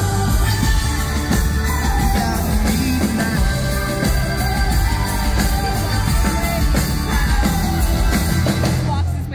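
Live rock band playing with a full drum kit and guitars under a sung vocal line; the band stops abruptly near the end as the song finishes.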